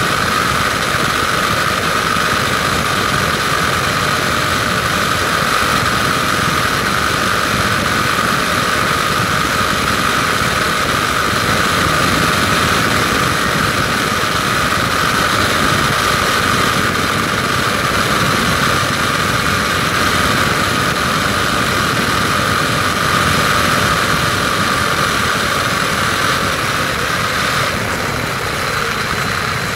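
WLToys 12428 RC car driving steadily on asphalt, its electric motor and gears giving a steady whine over tyre and road noise, heard from a camera riding on the car. The whine eases slightly near the end.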